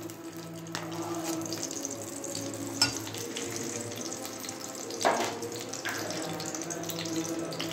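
Ghee melting and sizzling in a hot aluminium kadai, with a steel spoon tapping and scraping against the pan a few times.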